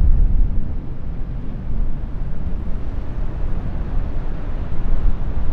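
Wind buffeting the microphone outdoors: a steady low rumble, strongest at the start and easing slightly after about a second.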